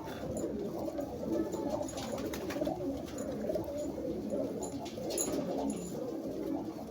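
Several domestic pigeons cooing at once in a continuous, overlapping chorus of low coos, with a few short clicks.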